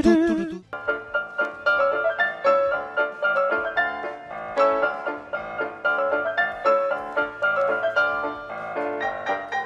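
Background piano music, a light tune of quick struck notes. Less than a second in, it cuts in abruptly over the end of a different track with wavering sung pitches.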